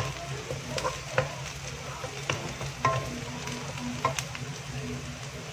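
Sliced onions, curry leaves and dried chillies sizzling in hot oil in a nonstick wok as they fry toward golden brown, stirred with a wooden spatula that clicks against the pan about five times.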